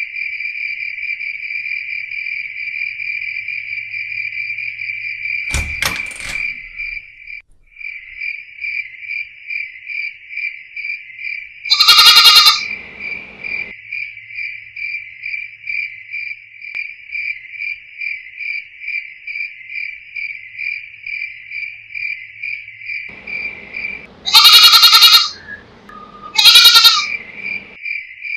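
Crickets chirping steadily in a fast pulsing trill, with a goat bleating loudly three times: once about halfway through and twice close together near the end. A single sharp knock sounds a little before the first bleat.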